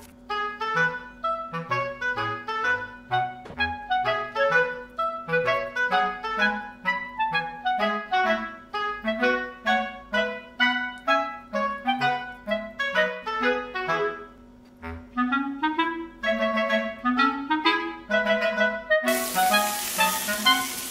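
Background music: a bouncy melody of short, detached notes on a clarinet-like woodwind over short bass notes and a held low tone. About two seconds before the end a steady hiss comes in under the music.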